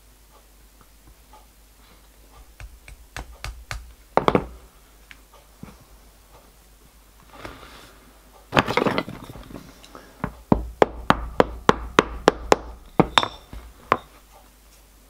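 Hand-work knocks and clicks of needle-nose pliers and a small MDF buffer being handled on a workbench: scattered light taps, a cluster of knocks a little past halfway, then a quick run of sharp clicks, several a second, near the end.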